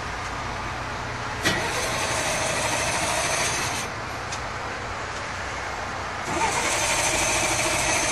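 Tempest fairground ride being started: a sudden thump about one and a half seconds in sets off a louder mechanical whirring that runs about two seconds and drops away, then a second whirring starts near the end, over a steady low engine hum. These are failed starting attempts; the ride won't start.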